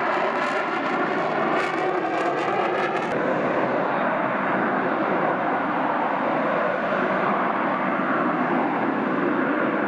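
Fighter jet engine running with a steady rushing noise. Over the first three seconds a faint shifting whine and some crackle lie on top, then it settles to an even sound.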